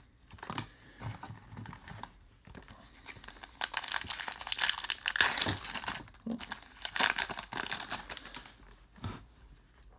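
Trading-card pack wrapper crinkling and tearing as it is opened by hand. It comes in irregular crackly bursts: a few light clicks first, then steady crinkling from about a third of the way in until near the end.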